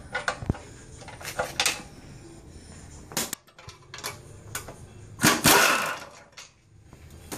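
An impact wrench on a long socket extension runs in one short hammering burst of just under a second, about five seconds in, loosening an 18 mm motor mount bolt on a car's K-member. Before it come scattered metal clicks and knocks of the socket and extension being fitted to the bolt.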